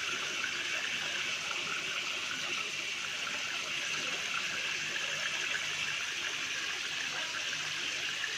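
Steady splashing of water pouring into a fish tank from the inlet pipes of a recirculating aquaculture system.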